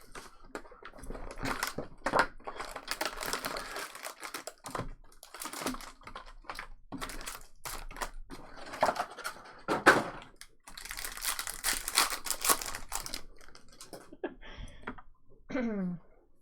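Trading-card pack wrappers being torn open and crinkled, with cards clicking and sliding as they are handled: irregular rustling and sharp little clicks.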